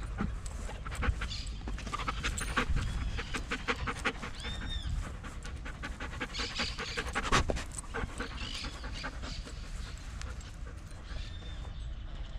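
Belgian Malinois panting quickly and rhythmically, with a steady low rumble of wind on the microphone.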